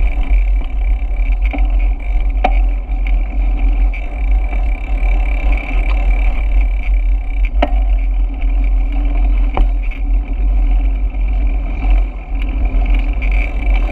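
Wind buffeting the microphone of a bicycle-mounted camera while riding: a loud, steady, low rumble over a steady hum, with three sharp clicks.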